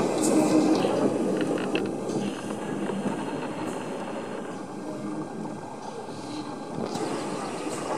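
LNER K4 2-6-0 steam locomotive and its tender rolling slowly along the track, with a few short clanks about a second or two in. The running noise fades as the engine moves away.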